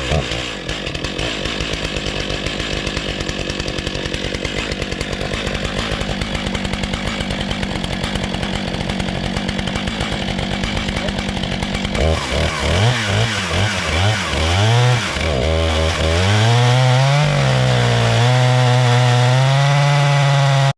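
Stihl MS 661 two-stroke chainsaw running under load in an Alaskan chainsaw mill with a 56-inch bar, ripping through a large white oak crotch. The engine note holds steady for about twelve seconds, then rises and falls several times as the load changes, and settles again before it cuts off suddenly.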